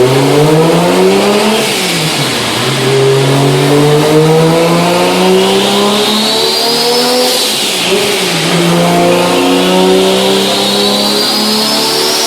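Tuned car engine accelerating hard through the gears, its note climbing, with sudden drops at two upshifts, about two seconds in and about eight seconds in. A high whine climbs with the revs.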